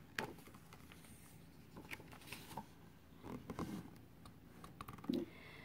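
Faint paper rustling and soft handling clicks as a page of a picture book is turned.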